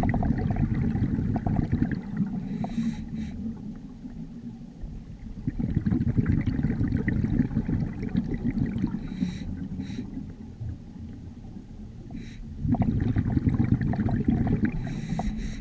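Scuba diver breathing through a regulator underwater: three long rumbling bursts of exhaled bubbles, each two to three seconds, with a short hiss of inhaled air between them.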